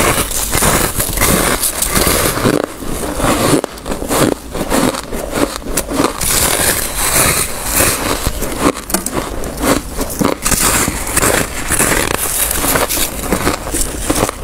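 Bites into a block of packed freezer frost, crunching and crackling densely and without pause as it is bitten off and chewed.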